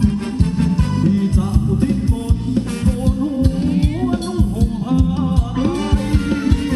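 Upbeat Thai ramwong dance music played by a live band, with a steady fast kick-drum beat and a voice singing over it.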